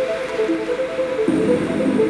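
Background music: a tune of short repeated notes, with a fuller lower layer coming in a little past halfway.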